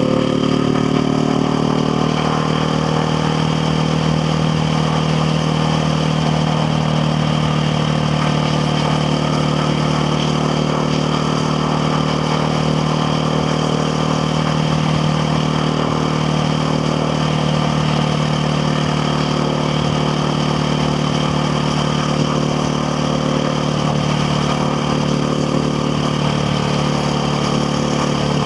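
KTM Duke 690R's single-cylinder engine running at a steady pitch. The note drops slightly just at the start, then holds even.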